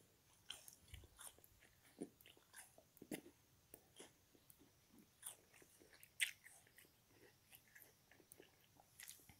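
Chewing a frozen sponge block: irregular, crisp crunches and bites, the loudest a sharp crunch about six seconds in.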